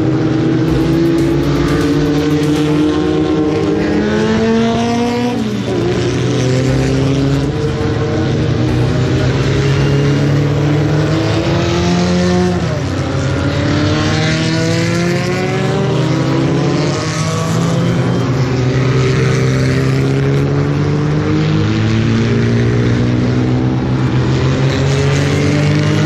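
Racing car engines at full throttle, climbing in pitch through the gears. The pitch drops sharply at each upshift, about three times, and then climbs again.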